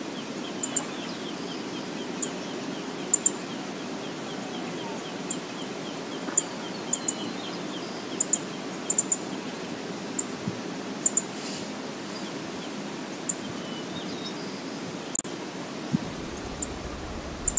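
Outdoor ambience of a marsh: a steady rushing hiss, with a small bird giving a quick run of high chirps for the first several seconds. Short, sharp high ticks, singly and in pairs, come throughout and are the loudest sounds.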